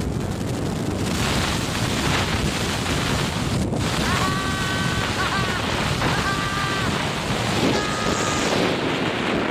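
Wind rushing over the microphone of a camera travelling at speed down a zip line: a steady rushing noise, with three short steady high tones about halfway through and near the end.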